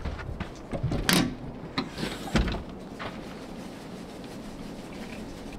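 A few knocks and bumps, the loudest about a second in and again about two and a half seconds in, then only a quiet background.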